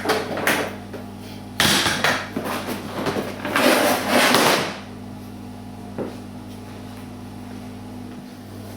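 Workshop handling noises: three rough bursts of clattering and scraping, the longest about a second, then a steady low hum with a single light knock.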